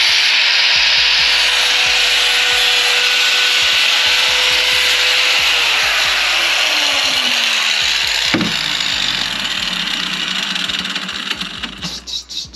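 Corded angle grinder cutting and grinding a metal fuel pressure regulator bracket held in a vise, a loud continuous grinding hiss. The motor's hum drops in pitch about halfway through, and the grinding dies away near the end.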